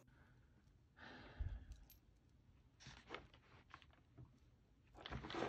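Paper and notebook handling: a soft rustle with a low thump about a second in, a few light clicks, and a louder rustle of paper near the end.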